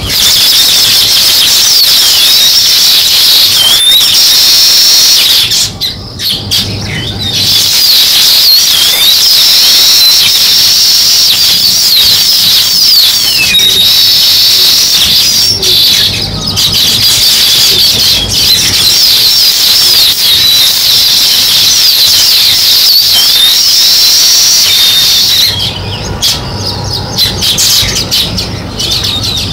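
House sparrows chirping, many short overlapping chirps in a dense, continuous chatter that eases briefly about six seconds in and again near the end.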